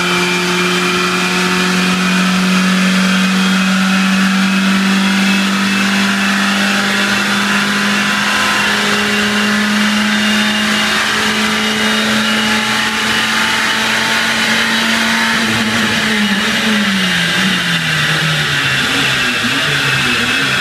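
Ford Puma 1.7 VCT four-cylinder engine running at high revs on a chassis dyno's rollers, its pitch climbing slowly and steadily. About fifteen seconds in, the revs drop away in a series of falling sweeps.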